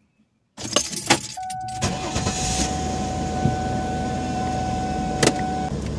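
Inside a 2003 Ford Taurus with its engine running: a low steady hum, keys jangling and a couple of clicks about a second in, then a steady high electronic tone held for about four seconds, with a sharp click near the end.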